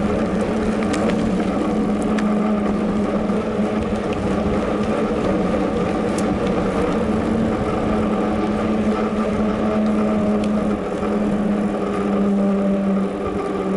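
Mountain bike rolling along a paved path, heard through an action camera riding on the bike: a steady noise of tyres and wind with a constant low hum and a few faint clicks and rattles from the bike.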